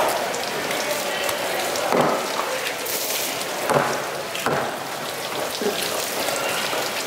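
Heavy cleaver chopping through a starry triggerfish on a wooden chopping block: several separate chops one to two seconds apart, over a steady hiss of wet background noise.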